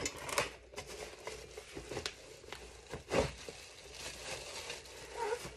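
Cardboard box and packaging being handled and opened, with crinkling, rustling and small clicks and one louder crackle about three seconds in.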